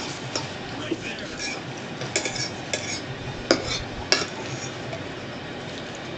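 Metal fork picking salad out of a plastic bowl: a run of short clicks and scrapes, the two loudest clicks a little after three and a half and just after four seconds, then it goes quiet.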